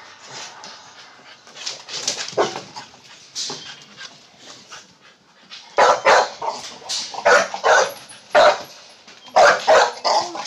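Pit bull-type dogs barking: softer scattered sounds at first, then a run of loud barks from about six seconds in, roughly two a second.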